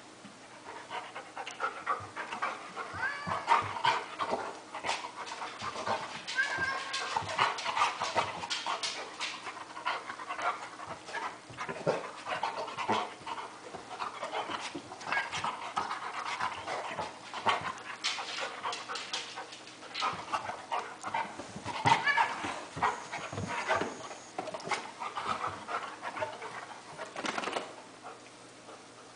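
Golden retriever panting hard while lunging and pawing at a cat, with scuffling and many short sharp noises; it dies down near the end.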